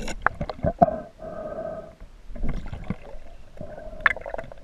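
River water gurgling as heard through an underwater camera, with a quick run of sharp knocks and clicks in the first second. A steady hum comes and goes.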